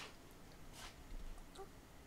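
Quiet room tone with a couple of faint, short taps, a little under a second in and again about a second and a half in.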